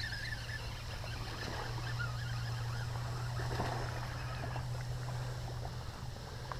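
A hooked largemouth bass splashing at the water's surface as it fights on the line, irregular splashes with a larger one about three and a half seconds in, over a steady low hum.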